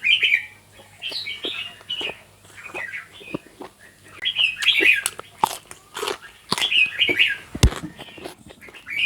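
Small birds chirping in repeated short bursts of high calls, with a few sharp clicks or knocks between them.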